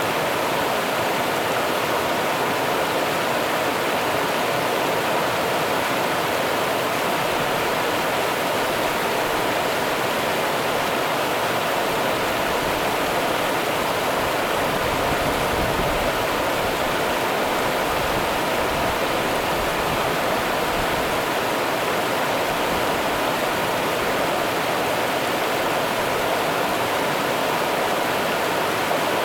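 Steady rush of the Rio Grande's running water, flowing evenly with no breaks or changes.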